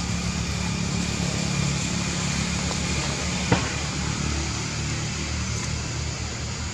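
Vehicle engine running steadily, a low hum with a constant hiss, and one sharp click about three and a half seconds in.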